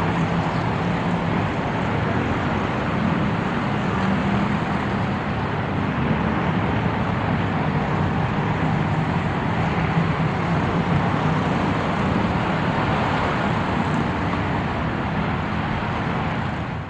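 Race sound effect: a continuous, even wash of motor-vehicle noise with a low steady hum and no single car passing by. It fades out at the very end.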